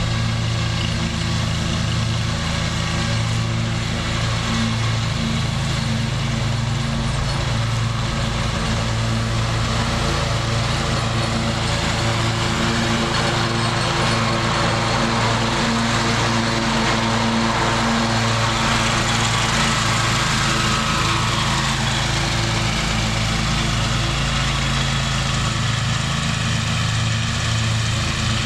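Scag zero-turn mower running with its blades engaged, now driven by the repaired PTO clutch: a steady engine drone with a whir of the cutting deck that swells as the mower passes close about halfway through, then fades as it moves off.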